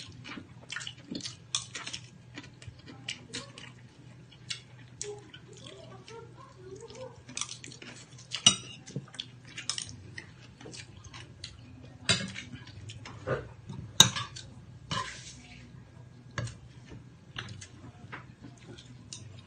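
Someone eating a seafood meal with their hands: chewing and mouth sounds mixed with irregular small clicks and clinks of dishes and shells. Two sharper clinks stand out, about eight and a half and fourteen seconds in.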